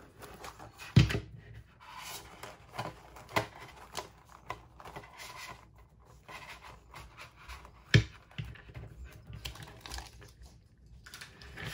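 Paper pages and plastic tab dividers of a mini discbound planner rustling and flicking as it is opened and leafed through by hand, with small ticks and two sharp knocks, about a second in and about eight seconds in.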